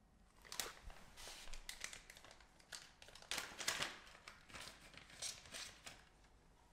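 Thin clear plastic bag crinkling and rustling in the hand as the receiver's antenna is pulled out of it, in a string of irregular crackly bursts lasting about five seconds.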